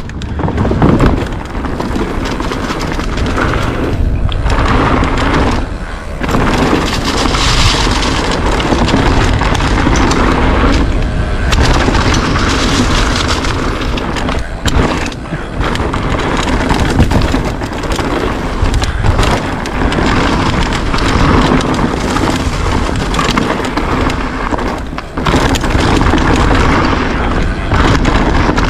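Mountain bike tearing down a rough downhill track, heard from a camera on the rider or bike: heavy wind buffeting on the microphone over tyres rolling on dirt and rock, with the bike rattling and knocking over bumps.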